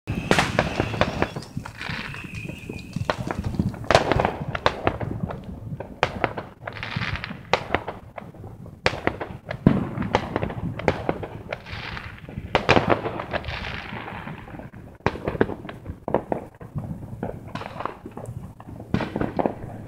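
Fireworks going off: dense crackling and popping with many sharp bangs in quick succession, the loudest about 4, 10 and 13 seconds in.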